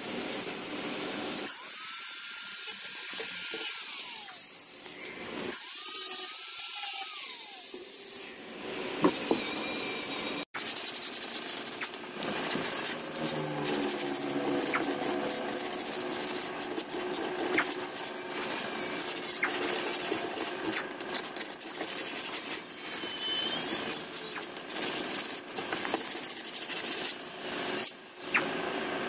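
Angle grinder with a sanding disc run in two short bursts against plywood and fiberglass, its whine rising as it spins up, holding, then falling as it winds down. A long stretch of scratchy rubbing noise with many small knocks follows.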